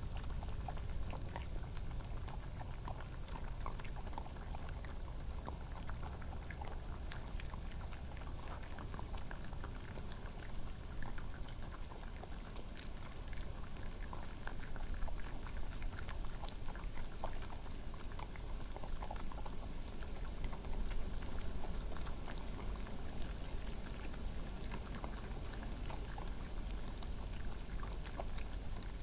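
Badgers and red foxes crunching and chewing peanuts: a steady patter of small crunches and clicks.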